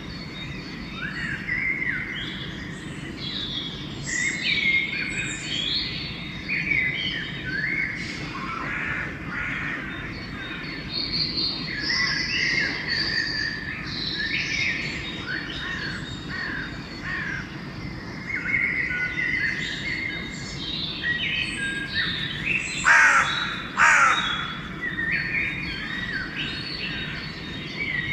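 Dawn chorus of many songbirds, chirping and whistling continuously and overlapping. About three-quarters of the way through, a crow caws loudly twice.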